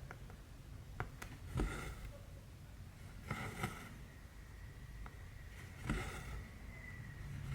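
Embroidery thread being drawn through cross-stitch fabric: three brief swishing pulls about two seconds apart, with a couple of small sharp clicks near the start.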